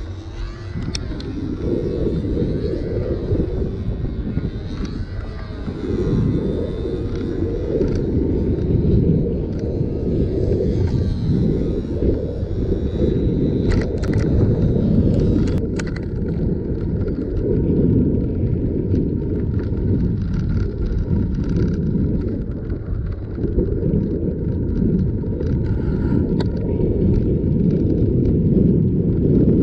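Wind buffeting the microphone while cycling: a steady low rumble that rises and falls, with a few sharp clicks about halfway through.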